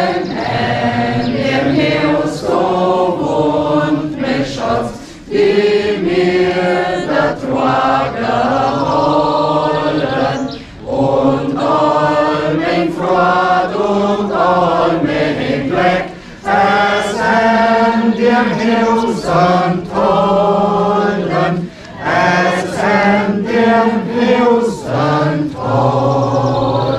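A small mixed group of men and women singing together without accompaniment, in sustained sung phrases of about five seconds with short breaks for breath between them.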